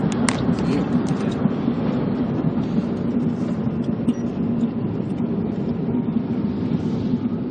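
Steady road and engine noise of a car driving at speed, heard from inside the cabin, with a constant low drone.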